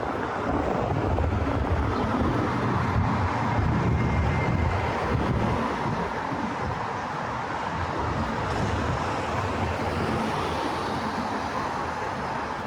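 City street traffic: a motor vehicle's engine and tyre noise swells over the first few seconds and then eases, over a steady low traffic rumble.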